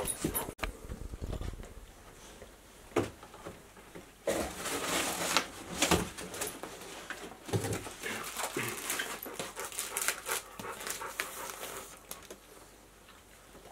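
Cardboard bike-box packing rustling, scraping and knocking as it is pulled out and handled, with a dog panting.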